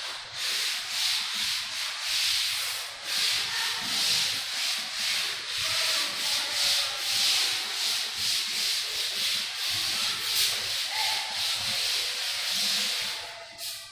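A duster rubbing chalk off a chalkboard in steady back-and-forth strokes, about two a second, stopping just before the end.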